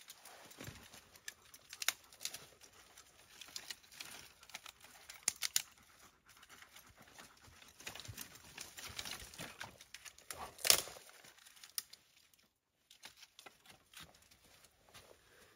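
Dry sticks and twigs being handled and sorted from a pile of firewood, with crinkling of dry leaves and scattered clicks of wood on wood. One sharp crack stands out about ten seconds in.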